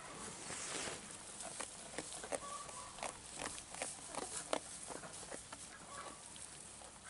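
Cameroon sheep pulling at and chewing dry hay close to the microphone: irregular crisp crunches and rustles, several a second.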